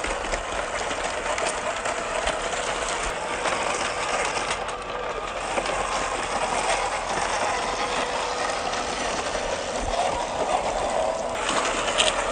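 Small-scale RC off-road truck's electric motor and plastic gearbox whining and grinding as it drives, with many small clicks and crackles over the top.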